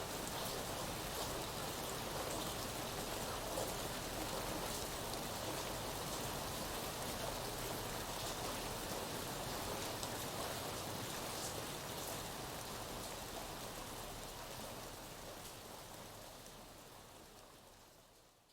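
Steady rain with scattered drop ticks, fading out over the last few seconds.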